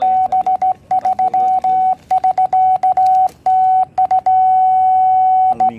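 Morse code (CW) sidetone from a low-power QRP transceiver: a single steady beep keyed on and off by hand on a straight key in short dits and longer dahs. One long held tone comes near the end.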